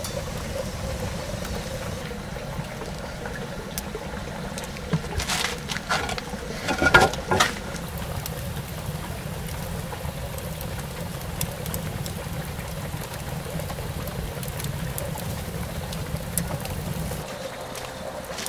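Wood fire burning with a steady low rumble, and a few sharp crackles about five to seven and a half seconds in.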